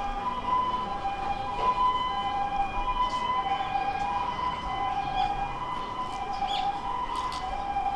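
Two-tone hi-lo siren of a Japanese ambulance, alternating between a higher and a lower note about every 0.6 seconds.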